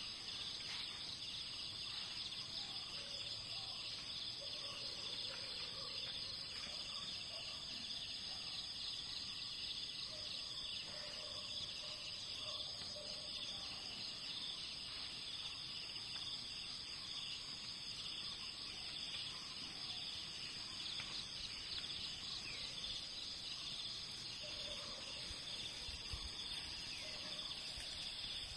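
Steady, high-pitched insect chorus with a fast, even pulsing, typical of cicadas in tropical forest, with a few faint short calls in the background.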